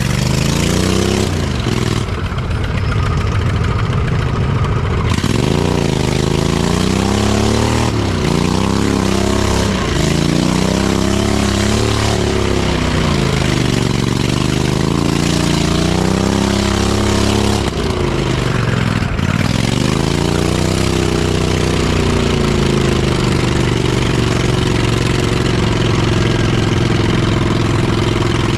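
Off-road mud mower's engine revving up and down again and again, then holding a steady speed for the last several seconds.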